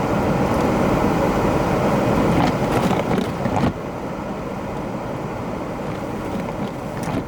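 Vehicle driving in the snow: a steady rumble of engine and road noise, which drops somewhat in level about three and a half seconds in.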